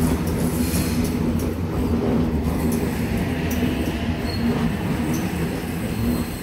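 Double-deck electric suburban train rolling past over the points: a steady low rumble with scattered clacks of wheels over rail joints, and a faint high wheel squeal in the middle.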